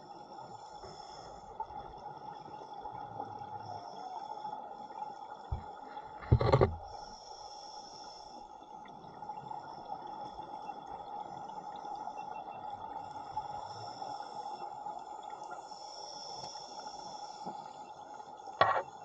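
Underwater ambience picked up by a camera in its housing: a steady muffled hiss, broken by two short loud bursts, one about six seconds in and one near the end.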